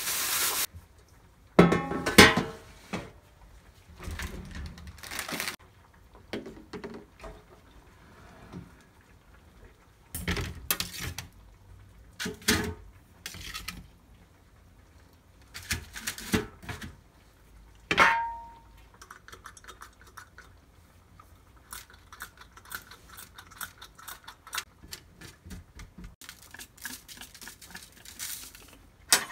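Kitchen utensils clattering and knocking against a stainless steel tray and an air fryer basket as fish pieces are moved and oiled. One knock rings briefly, like metal, about two-thirds of the way through. Near the end comes a run of small quick clicks from a seasoning grinder being turned over the basket.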